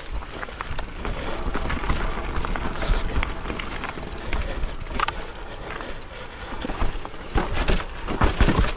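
Mountain bike descending a rocky forest trail: tyres rolling over dirt, roots and stones with a dense clatter of sharp knocks and rattles over a heavy low rumble. The knocks grow thicker near the end.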